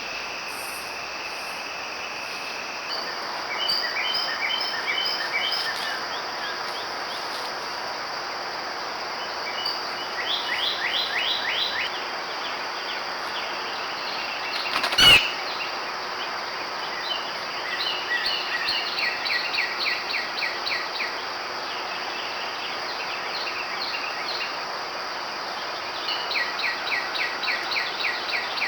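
A bird singing, four phrases of rapid repeated high notes with pauses between, over a steady hiss. One sharp click about halfway through.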